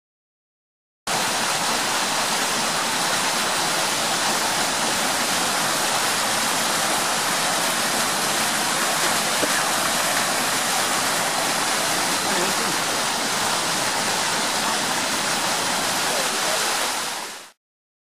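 Clear, shallow stream rushing over rocks and stones: a steady, even rush of water that starts abruptly about a second in and fades out near the end.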